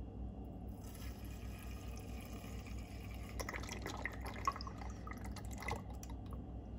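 Methanol trickling faintly from a plastic squeeze bottle into the burner cup of a small brass Red Camp alcohol stove, with a few brief drips. This is the stove being filled with fuel.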